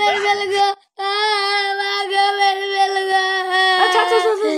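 A child's high-pitched voice holding one long, steady, loud note, breaking off briefly about a second in and wavering near the end.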